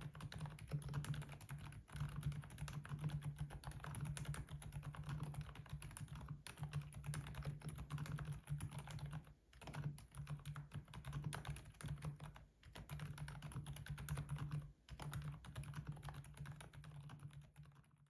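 Fast, continuous typing on a keyboard fitted with Kailh Deep Sea Pro Whale silent tactile switches, giving a dense stream of muted key strokes. The typing breaks off briefly three times, at about nine and a half, twelve and a half and fifteen seconds in.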